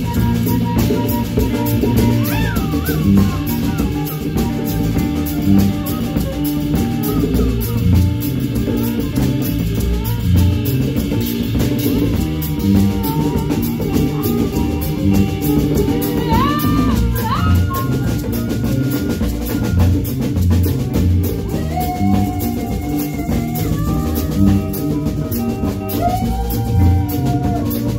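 Instrumental band music with a steady drum-kit beat, bass and guitar, and a melody line that slides between held notes.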